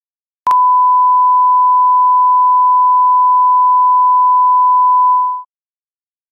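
Line-up test tone played with colour bars: one steady, pure, loud beep lasting about five seconds, with a click at its start.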